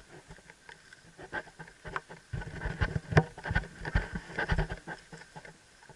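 Helmet-mounted camera knocked and rubbed while the rider adjusts her helmet: irregular clicks and knocks on the microphone, with a run of heavier thumps in the middle.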